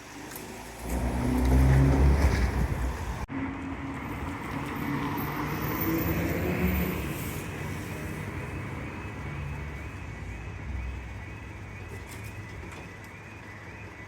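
Vehicles passing at a level crossing. A loud low rumble swells about a second in and cuts off abruptly, followed by a quieter engine that rises in pitch and then fades.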